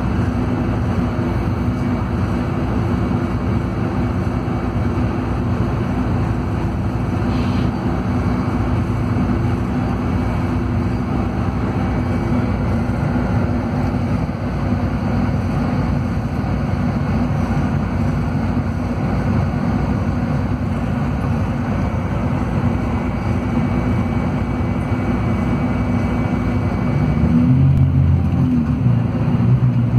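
Scania DC13 six-cylinder diesel of a double-decker coach droning steadily, heard inside the upper-deck cabin. Near the end the engine note shifts and grows louder as it pulls.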